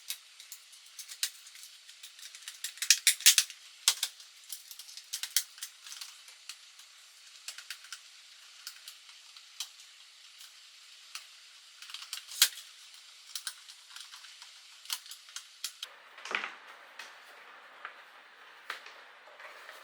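Irregular small clicks and taps of tools and plastic and metal parts being handled while a new two-core wire is connected into a plug extension box, with a cluster of sharper clicks about three seconds in and another loud click near the middle.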